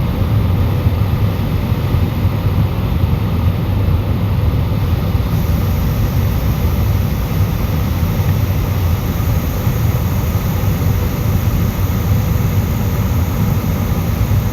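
Steady cabin noise of an Airbus airliner in flight: the drone of the jet engines and rushing air, even and unchanging, heaviest in the low range.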